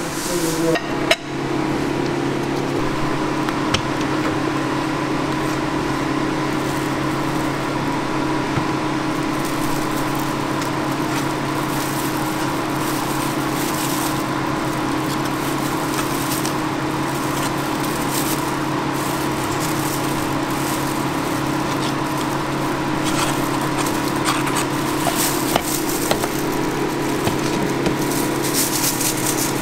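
Steady machine hum of kitchen equipment, with light clicks and scrapes from a metal palette knife spreading whipped cream on a waffle; a sharper click comes about a second in.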